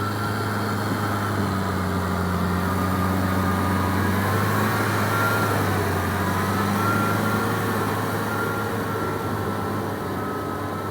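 Kubota M6040SU tractor's diesel engine running steadily while ploughing, a constant low hum with a thin, wavering higher whine over it.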